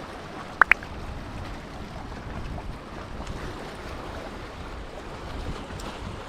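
Wind rumbling on the microphone over the steady wash of the sea. About half a second in come two very short, sharp squeaks in quick succession, each rising in pitch.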